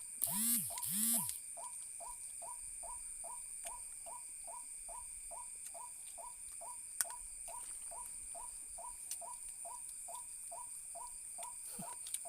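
Night forest animal chorus: a short falling call repeats steadily about two to three times a second over a constant high insect hum. Two loud, drawn-out calls sound in the first second and a half, and there is a sharp click about halfway through.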